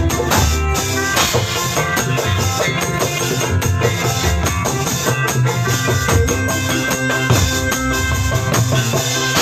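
Band music with a drum kit keeping a steady beat, a strong bass line, and melodic instruments holding sustained notes.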